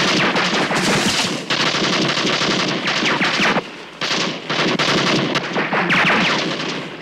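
Rapid automatic gunfire, loud and continuous, breaking off briefly a little before four seconds in and then resuming.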